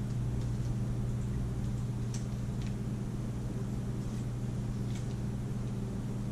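Steady low hum, with a few faint light taps and paper sounds as small paper squares are pressed and glued onto a paper plate, about two seconds in and again around five seconds.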